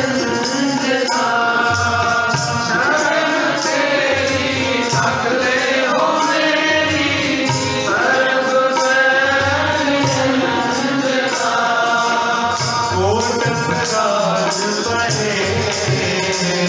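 Gurbani kirtan: harmoniums playing a sustained melody under a voice singing the shabad, with tabla drums keeping the rhythm.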